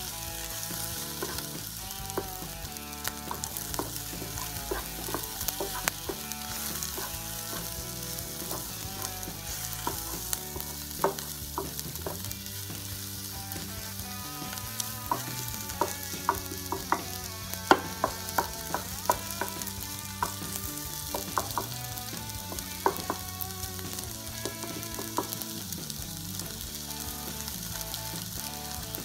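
Diced chicken breast, rice and onion sizzling steadily in a nonstick frying pan while being stirred and scraped with a wooden spatula. The spatula strokes come as irregular sharp clicks and scrapes over the sizzle, busiest in the middle stretch.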